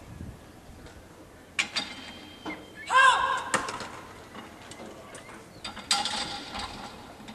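Gun-drill commands shouted by a field-gun crew: a loud, short call with a rising-then-falling pitch about three seconds in and another held call about six seconds in, after a couple of sharp knocks from the crew's drill equipment at the gun.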